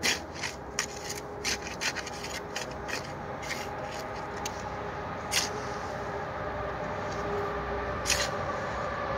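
A stick scraping and jabbing at dirt ground, making irregular sharp scrapes, thickest in the first couple of seconds, with single louder scrapes about five and eight seconds in, over a steady low hum.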